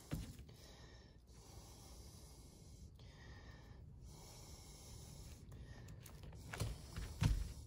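Quiet handling of cast-net twine during a repair: faint rustling of the mesh, with a few short soft knocks near the end.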